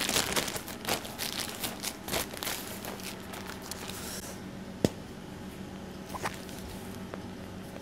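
Plastic piping bag full of meringue crinkling and rustling as it is twisted and squeezed, dense crackly handling noise for the first four seconds or so, then quieter with a single sharp click near five seconds. A steady low hum runs underneath.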